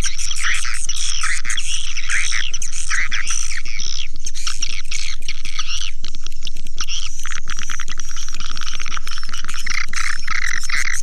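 Swiftlet calls played as a lure recording: a dense, unbroken chorus of rapid chirps and twitters, with a steady low hum underneath.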